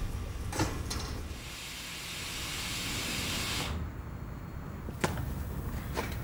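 Train air brakes being released during a brake test: compressed air hisses, growing for about two seconds and then cutting off suddenly. A few short clicks come before and after the hiss.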